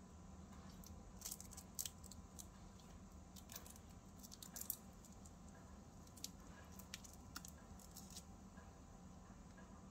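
Faint crinkling and crackling of baking paper being peeled off and handled, in scattered small clicks over a low steady hum.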